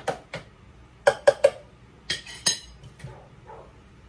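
Plastic Ninja blender pitcher and its blade shaft being handled: a few hard knocks, three loud ones a little after a second in, then two bright clinks about two seconds in, followed by faint handling noise.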